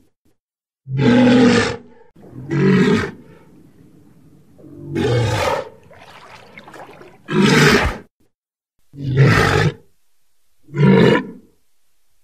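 Walrus calling: six loud calls of about a second each, one every one and a half to two seconds, with a quieter low rumble between the second and fourth calls.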